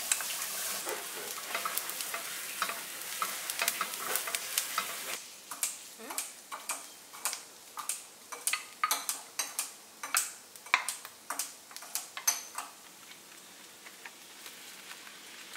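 Diced shallots and ham frying in a non-stick pan: a steady sizzle with small clicks of stirring. About five seconds in the sizzle drops away and sharp separate pops and crackles take over, thinning out near the end.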